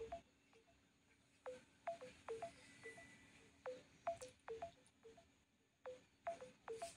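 Faint electronic blips from a smartphone, each a tiny click and a short tone dropping to a lower note, repeating at uneven intervals. It is the phone's waiting sound while an image is being analyzed.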